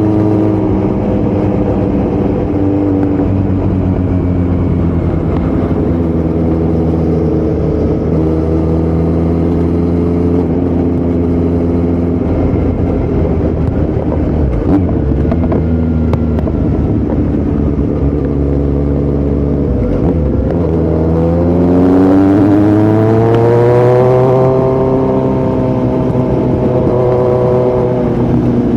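2018 Kawasaki Z900's inline-four engine running through an open Yoshimura muffler and Delkevic headers with no dB killer, loud and fairly steady while riding. About two-thirds through the revs drop briefly, then rise steeply under acceleration and are loudest for a couple of seconds before levelling off.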